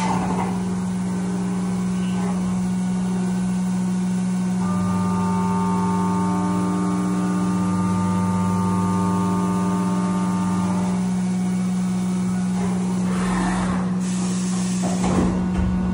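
Haas CNC vertical milling machine running under flood coolant with a steady hum. From about five to eleven seconds in, a higher whine rises over it as the end mill cuts the metal part. Near the end the spindle is lifted clear, and the cutting tone gives way to coolant splashing and a few knocks.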